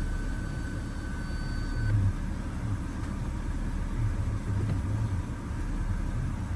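BMW X3 2.5si petrol straight-six engine idling after a coil pack replacement, running steadily without the earlier cylinder 6 misfire. A thin steady high whine runs alongside for the first two seconds, then stops.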